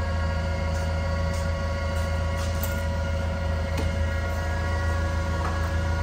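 An engine idling steadily at one unchanging pitch, with a few light knocks in the middle.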